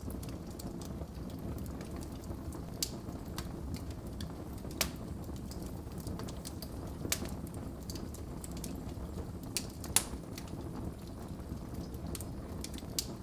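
Wood fire burning in a fireplace: a steady low rumble of flames with scattered sharp crackles and pops, the loudest pop about ten seconds in.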